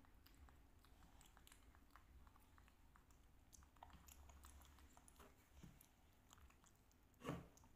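Very quiet eating sounds: faint, scattered clicks of spoons against cups and soft chewing, with one louder knock near the end.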